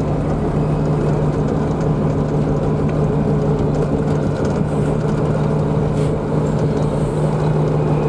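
Takeuchi skid steer's diesel engine running at a steady speed, with a constant low hum and no change in revs.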